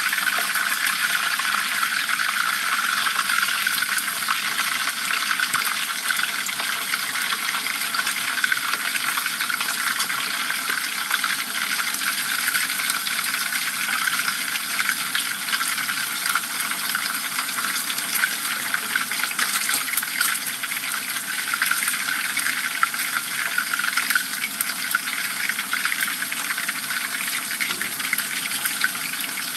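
Dorado fish deep-frying in a pan of hot oil: a steady, loud sizzle with dense crackling spatters.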